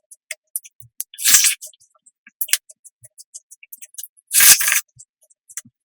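Close-miked eating sounds: many small wet mouth clicks, with two louder, noisy half-second bursts about a second in and again past the four-second mark.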